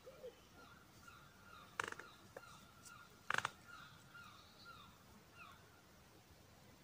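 Birds chirping and calling faintly in the trees over a river, with two short, louder rattling bursts about two and three and a half seconds in.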